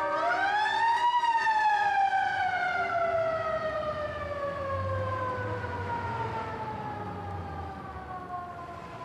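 A siren rising for about a second and then slowly winding down in pitch.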